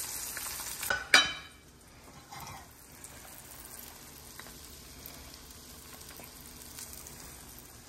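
Egg and butter sizzling in an uncoated stainless steel frying pan, with a single metallic knock about a second in. After the knock the sizzle drops to a faint hiss.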